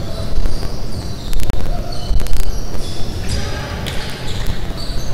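A basketball bouncing on a hardwood court, with several sharp knocks, and sneakers squeaking on the floor as players move.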